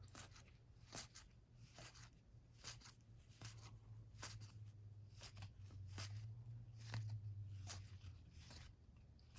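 Faint, light clicks of game cards being handled and flicked through one at a time, roughly two a second, over a low steady hum.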